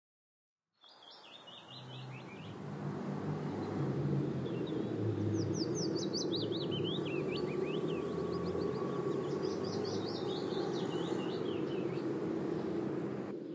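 Small birds chirping in quick runs of high notes, three spells of them, over a steady low background rumble; the sound fades up from silence about a second in.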